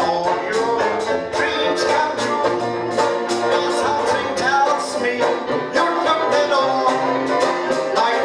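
Traditional jazz band playing live: a sousaphone bass line under strummed banjo and guitar, with a steady beat.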